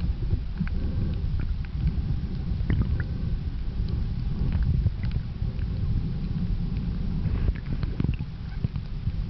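Underwater sound of shallow, surging sea water picked up by the camera: a steady low rumble, with scattered faint clicks and ticks.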